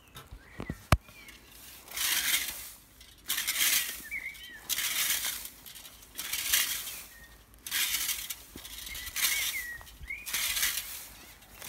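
Plastic fan rake scraping through cut dry grass on a lawn in a steady rhythm of strokes, about one every second and a half. A sharp knock comes about a second in, and a bird chirps now and then.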